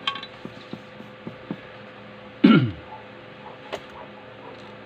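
A few light clicks and taps of tools being handled on a wooden bench over a faint steady hum, then, about halfway through, one loud, short throaty sound from a person that drops quickly in pitch.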